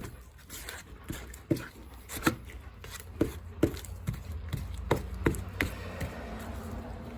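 Fiberglass body filler being mixed with its hardener, a spreader knocking and scraping on the mixing surface in an irregular run of sharp taps.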